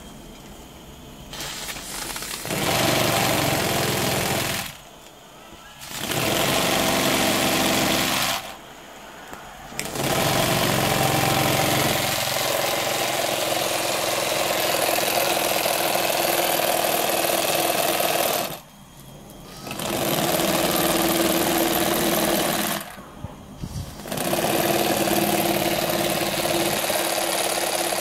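Small three-cylinder oscillating steam engine running under steam, with a loud hiss of escaping steam. The sound cuts out abruptly for about a second four times and then starts again.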